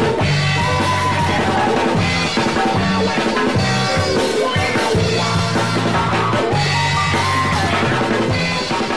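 Background music with drums and a bass line.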